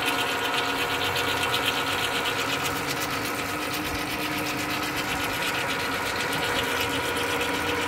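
Open headstock gearbox of a Japanese lathe running, its gears meshing and shafts turning with a steady hum and a fast, even clatter. The gears are running wet with oil from the lubrication pump.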